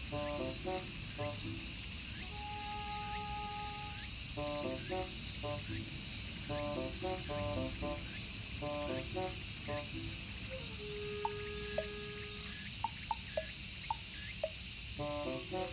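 A steady, high-pitched chorus of insects chirring without a break. Under it plays soft background music of short repeated notes, with a few held tones and plucked notes.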